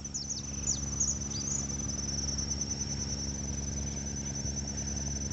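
Insects, likely crickets, trilling steadily in a high rapid pulse, with a few short falling bird chirps in the first second or so, over a low steady hum.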